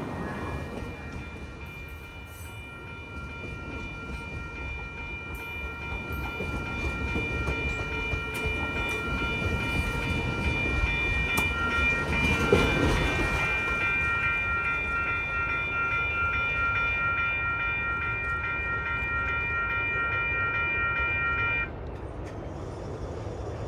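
Bilevel passenger train cars rolling past close by, with a rumble that builds to a peak about halfway through, over a steady high ringing tone. The sound cuts off suddenly near the end.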